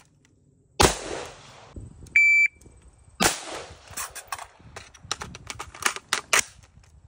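Rifle shots from an AR-15: one loud crack about a second in and another after about three seconds, each with a long echo trailing off. A short electronic beep sounds between them, and a quick run of sharper, quieter cracks follows the second shot.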